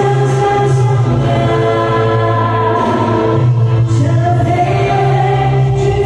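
A woman sings a Mandarin pop song in long, held notes over steady band accompaniment, played back from a concert on a television.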